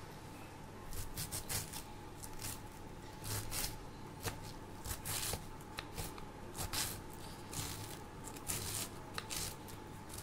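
Kitchen knife slicing a rolled bundle of taro leaves into fine shreds on a wooden cutting board: crisp, irregular cuts in quick clusters, starting about a second in.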